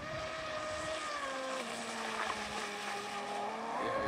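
Cyberstorm RC speedboat's Mamba Monster brushless electric motor whining at high speed. The pitch drops about one and a half seconds in, holds lower, then climbs sharply near the end as the motor speeds up again.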